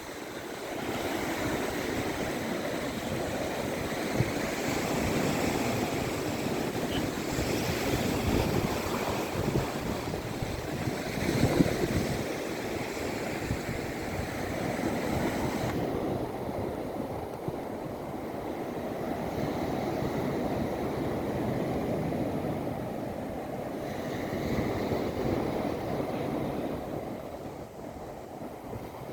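Sea of Azov surf washing onto the beach, a steady wash that swells and eases every few seconds.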